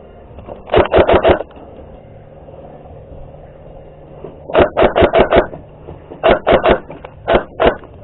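Airsoft gun firing in quick strings of shots: about four a second in, a string of about six near the middle, then three and two more near the end.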